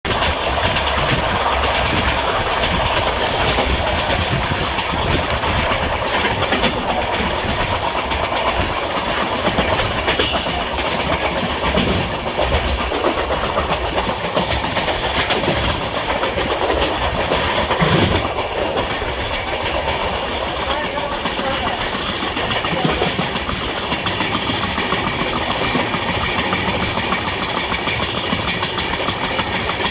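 Coaches of the Jammu Tawi–Kolkata Express running at speed, heard from the open doorway: a steady rush of wheels and wind over the rails. Clicks come every few seconds as the wheels cross rail joints, with the loudest clatter about eighteen seconds in.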